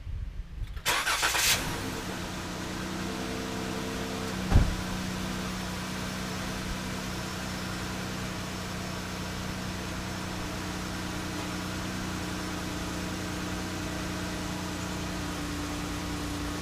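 The 1967 Oldsmobile Toronado's 425 big-block V8 starts with a loud burst about a second in, then settles into a steady idle. A single sharp bang sounds once, about four and a half seconds in.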